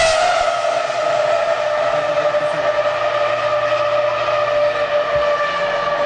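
Formula 1 V10 engine at high revs as the car goes by. Its high note finishes a quick drop in pitch just at the start, then holds nearly steady and sinks slowly as the car runs on down the straight.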